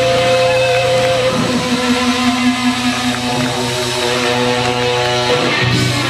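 Live rock band playing over the hall's sound system, heard from the audience seats, with long held notes: one breaks off about a second in and a lower one is held until near the end.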